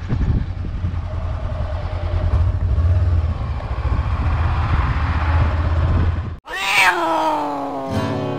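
Motorcycle riding sound: a steady low engine and wind rumble that cuts off abruptly about six seconds in. A long tone follows, falling in pitch, and acoustic guitar music starts near the end.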